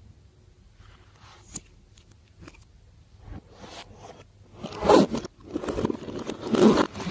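Slime being squished and stretched by hand, giving sticky crackles and squelches: scattered small clicks at first, then louder handling about five seconds in and again near the end.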